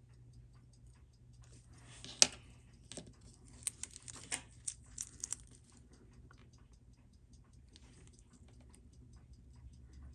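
Small sharp clicks of a watchmaker's tool working on the Seiko Y187-7A30 quartz chronograph movement: one sharp click about two seconds in, then a run of lighter clicks, all under a faint, even ticking of several beats a second.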